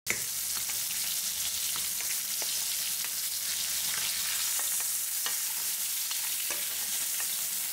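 Ribeye steak sizzling in oil and melting butter in a stainless steel frying pan: a steady hiss with scattered pops and light clicks as the hot fat is spooned over the steak.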